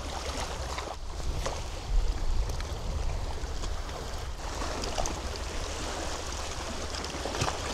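Sea water washing and splashing against a rocky shore, with wind rumbling on the microphone and a brief louder jolt about two seconds in.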